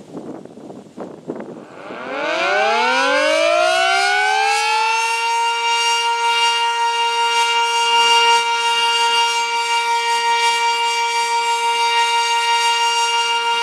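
Village outdoor warning siren winding up: a rising wail that climbs for a couple of seconds, then holds one steady loud tone. Wind noise and a few light knocks come before it starts.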